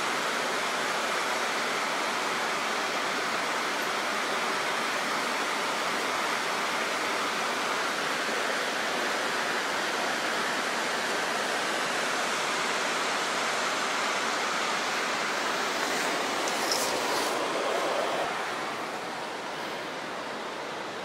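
Creek water rushing far below, a steady even hiss of flowing water that eases off a little near the end. A few brief clicks stand out about three-quarters of the way through.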